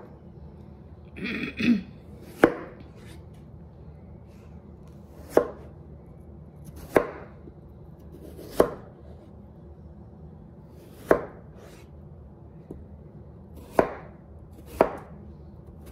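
Knife chopping peeled raw potatoes into small pieces: slow, separate strokes that land every one to three seconds, about seven in all.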